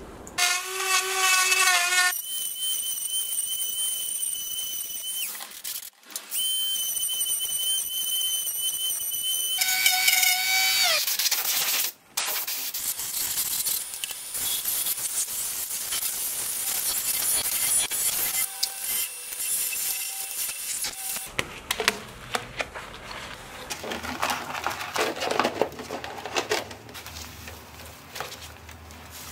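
Robust wood lathe's motor and drive whining as it spins up, running steadily with a short break, then winding down. A rough hiss follows, then a stretch of crinkling and knocking as stiff clear plastic sheet is handled.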